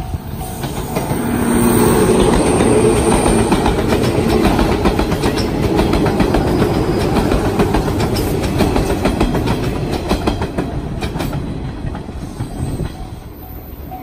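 Electric train passing close by on the JR Nanao Line: wheels rumbling on the rails with repeated clacks over the rail joints. It builds up about a second in, is loudest for most of the pass, and fades away near the end.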